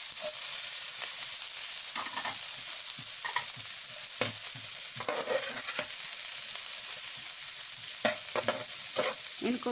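Shredded cabbage and carrots sizzling in hot ghee in a metal wok, with a steady hiss. A slotted metal spatula scrapes and knocks against the pan now and then as the vegetables are stirred.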